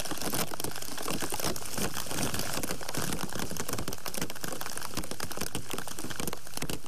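Steady rain, with a dense patter of small drop hits close to the microphone.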